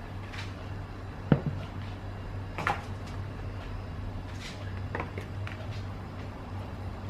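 Kitchen handling noises: a few scattered knocks and clicks, the sharpest about a second and a half in, over a steady low hum.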